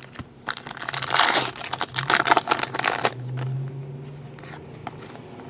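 Trading-card pack wrapper crinkling and tearing as it is opened, a dense crackle lasting about two and a half seconds, followed by a low steady hum.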